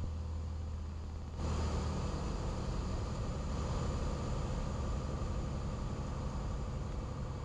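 Cessna 182's piston engine and propeller running, heard inside the cabin as a steady drone. About a second and a half in, it steps up suddenly, louder and with more hiss.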